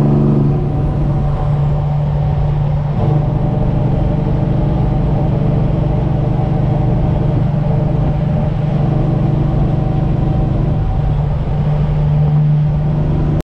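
Straight-piped semi truck's diesel engine running at a steady speed under way, a loud, even drone whose pitch holds constant, heard from inside the cab.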